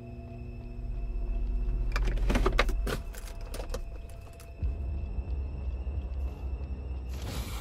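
A steady, faint tone fades as a run of sharp clicks and knocks comes about two seconds in. A little over four seconds in, a car's engine starts a low rumble, heard from inside the car's cargo area.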